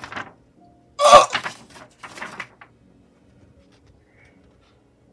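A person's short, loud throat noise about a second in, followed by faint handling sounds, then soft background music.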